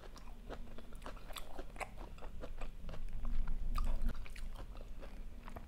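Close-miked chewing of a mouthful of food, with many short wet clicks from the mouth.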